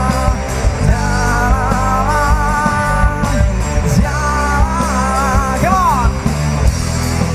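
Live band playing a rock song: drums and bass under a lead line of long, bending notes, with one quick slide up and back down about six seconds in.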